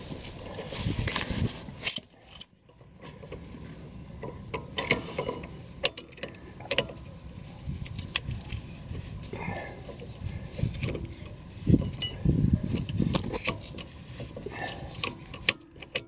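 Irregular metallic clicks, clanks and rattles of hand tools on a rear brake caliper as a threaded piston-rewind tool is fitted and turned against the caliper piston.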